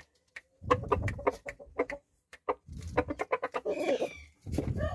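Aseel rooster of the Cheena Lakha type clucking in three bursts of rapid, rasping notes with a pitched call in them. A longer call begins near the end.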